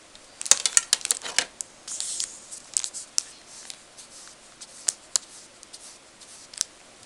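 Paintbrush scrubbing and tapping in a pan of watercolour in a plastic palette: a quick run of sharp clicks, then a brief scratchy hiss. Light, scattered clicks follow as the brush strokes paint onto paper.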